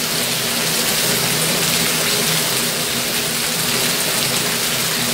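Steady rain falling and splashing onto a wet paved yard, a constant even hiss.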